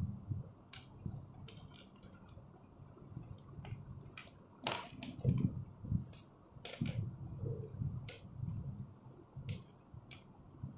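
Handling noise from a wired earphone's cable being untangled and its earbuds set down on a wooden table: scattered light clicks and soft knocks at irregular moments, a few louder ones about five and seven seconds in.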